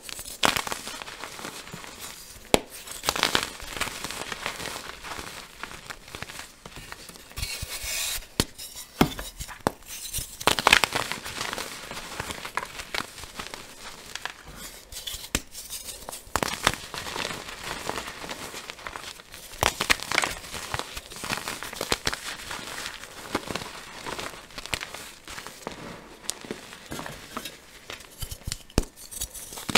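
Dyed gym chalk blocks crushed and crumbled by hand: a steady run of dry crunching and crackling, with louder cracks here and there as chunks break apart.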